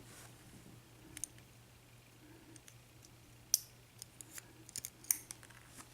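Scattered light metallic clicks and taps of small lock parts being handled while a pin-tumbler padlock is taken apart and its pins and springs are removed from the cylinder. The sharpest click comes about three and a half seconds in, followed by a few quicker ticks.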